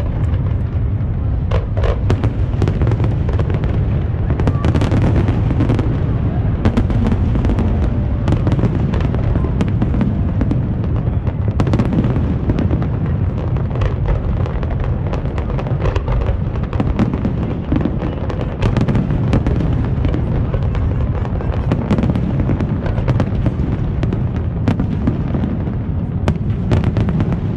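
Fireworks show in full swing: a continuous low rumble of booms with many sharp cracks and pops over it.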